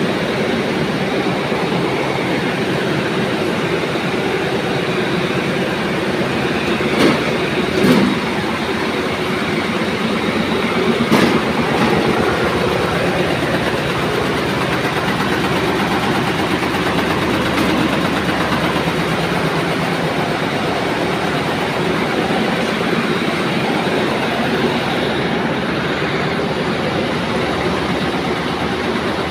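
Steady, loud running noise of cotton comber machines in a spinning mill, with a few sharp knocks about seven, eight and eleven seconds in.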